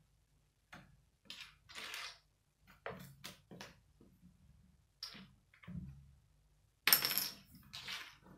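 Loose plastic Lego bricks being handled and set down on a wooden tabletop: a run of short clicks and clatters, the loudest about seven seconds in.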